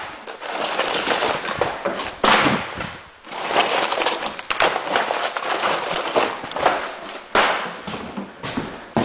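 Broken pieces of gypsum drywall scraping and clattering as they are gathered off a pile and dropped into a wheelbarrow, in irregular rough swells with sharper crashes about two seconds in and again around seven seconds.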